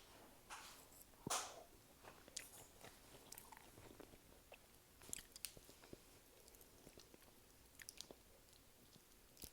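Close-miked eating: a person biting and chewing, with one loud crunchy bite a little over a second in, then scattered wet mouth clicks and smacks.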